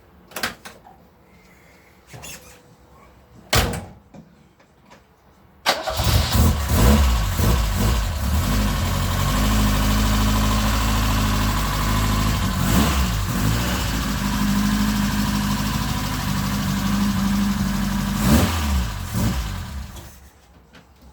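Car engine starting about six seconds in, idling with a couple of brief swells, then shut off near the end. A few sharp clicks and knocks come before it starts.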